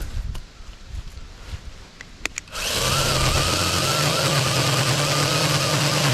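SAKER 20-volt battery mini chainsaw: a couple of sharp clicks, then about two and a half seconds in its electric motor starts and the chain runs at a steady speed with a wavering whine.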